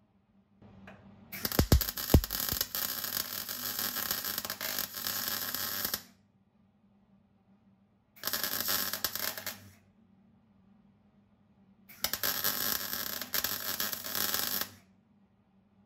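MIG welder running three short welds on a sheet-steel floor panel: bursts of arc crackle about four and a half, one and a half and three seconds long, with a few sharp low pops as the first weld starts.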